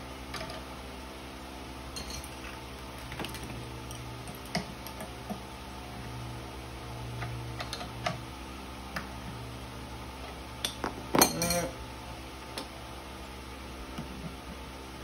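Steel wrench clicking and clinking on the bolts of a PVC leg joint as they are tightened, with scattered light knocks of plastic parts, over a low steady hum. About two-thirds of the way through comes a louder, briefly ringing metal clatter, the loudest sound here.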